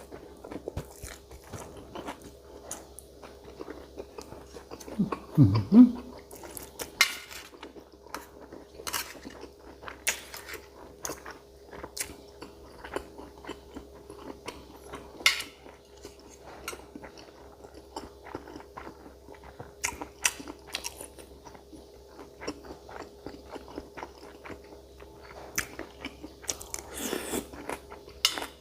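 Close-up mouth sounds of a person eating spicy boiled cow's-foot salad: wet chewing and crunching with many small sharp clicks at an uneven pace. About five seconds in comes a short low vocal sound, the loudest moment, and a faint steady hum runs underneath.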